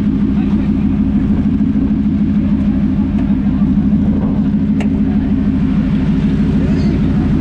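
A truck engine running steadily at a constant speed, a deep, even drone that holds one pitch throughout.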